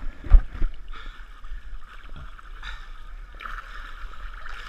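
Water sloshing and splashing as a runner wades through a muddy pond, with a thud shortly after the start.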